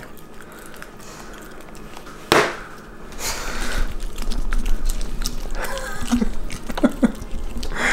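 A small dog licking and lapping food off a plastic high-chair tray: quick, irregular wet licks that start about three seconds in and grow busier. A single sharp knock comes just before the licking begins.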